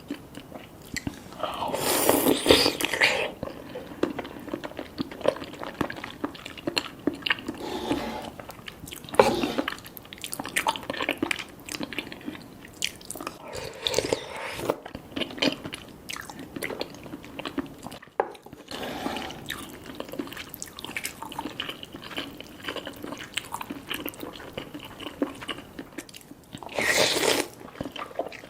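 Close-up eating sounds of cheesy spicy Korean noodles: wet chewing and biting with many small mouth clicks, and two longer, louder noisy stretches, about two seconds in and near the end.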